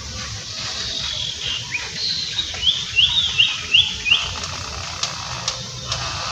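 A small bird calling over steady outdoor background noise: a few single chirps, then a quick run of about five chirps in the middle, and a few faint clicks near the end.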